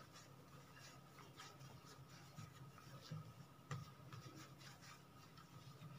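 Near silence: faint rubbing of hands rolling soft bread dough into a rope on a floured stone worktop, with a couple of light taps about three seconds in.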